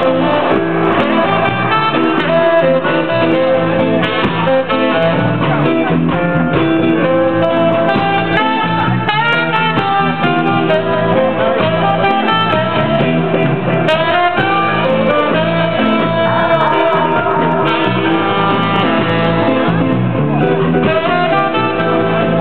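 Music with plucked guitar, played steadily throughout.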